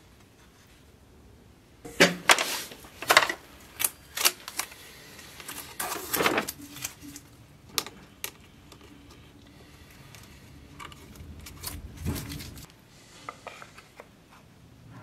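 Hand tools and wooden workpieces clattering on a workbench as they are picked up and set down. A rapid run of sharp knocks and clinks starts about two seconds in, then thins out to a few, with one heavier thump later on.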